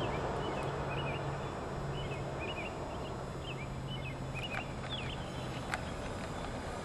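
Small birds chirping in short, repeated calls over a steady low hum.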